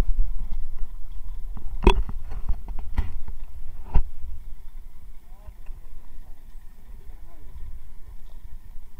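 Low rumbling noise aboard a small fishing boat, with about four sharp knocks in the first half. Faint voices come in during the second half.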